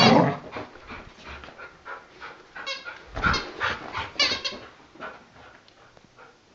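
Red rubber squeaky ball toy being squeezed repeatedly in a dog's jaws: quick high squeaks in clusters, loudest at the start and again around three to four and a half seconds in, thinning out toward the end.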